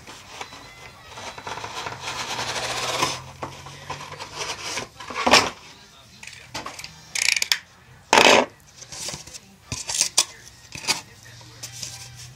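X-Acto craft knife slicing through thin poster board: a scratchy cutting sound lasting about three seconds. It is followed by knocks and clatters as the board pieces are handled and set down on the table, the loudest about eight seconds in.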